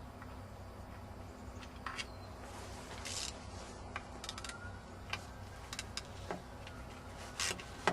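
Scattered light clicks, taps and short scrapes of hand tools and small metal parts as a chainsaw's muffler bolts are taken out, over a steady low hum.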